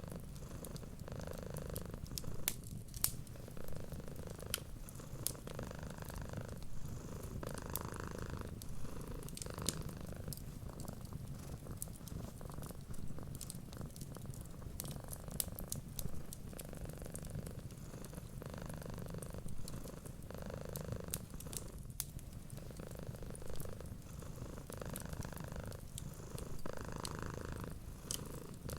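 A cat purring steadily, the purr swelling and easing with each breath, over a wood fire crackling with frequent small sharp pops.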